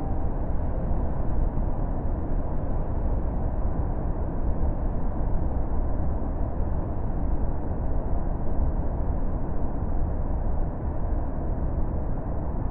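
Steady roar of a large waterfall, a dense rushing noise heaviest in the low rumble, with no breaks or separate events.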